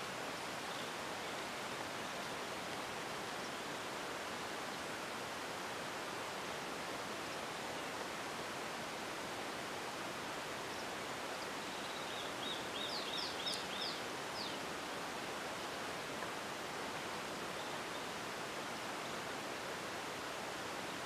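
Steady outdoor background hiss, with a bird's short run of about half a dozen quick high chirps a little past the middle.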